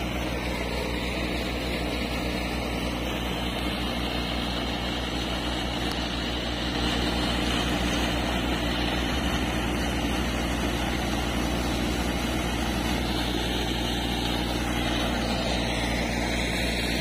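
Engine running steadily, with the rush of sand-and-water slurry gushing from a dredge pipe's outlet. It gets a little louder about seven seconds in.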